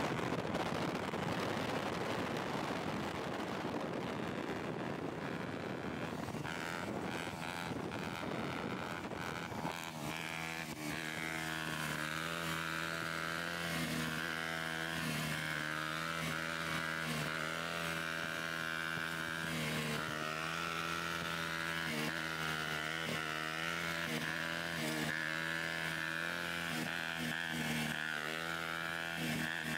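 Dirt bike engine running steadily through a long wheelie. For about the first ten seconds it is buried in a broad rush of wind and road noise. After that a steady, slightly wavering engine note dominates.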